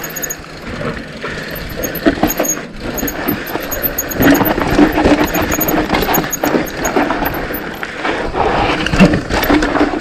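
Mountain bike riding a dirt trail: tyres rolling over rough ground with constant clicking and rattling from the chain and bike, under rushing wind on the microphone.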